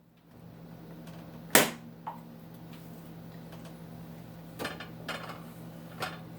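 Dishes clattering as they are set into a dishwasher rack: one sharp, loud clatter about a second and a half in, then a few lighter clinks and knocks, over a steady low hum.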